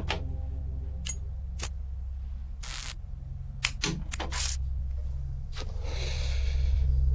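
Radio static in a pause of a broadcast: a steady low hum with scattered clicks and short bursts of crackle, and a longer hiss about six seconds in.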